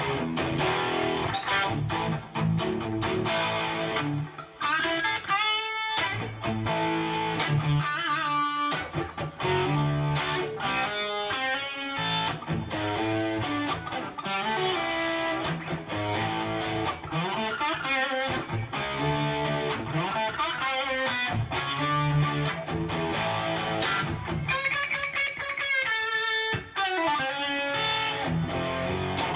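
Electric guitar played through a DigiTech 2101 tube preamp and effects processor: lead lines with bent notes, a fast run about five seconds in and another near the end.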